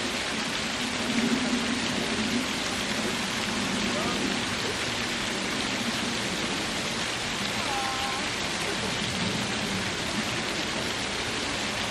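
Small waterfall splashing over rocks: a steady, even rush of falling water.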